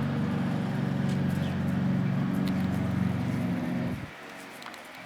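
An engine running steadily with a low hum, which winds down and stops about four seconds in.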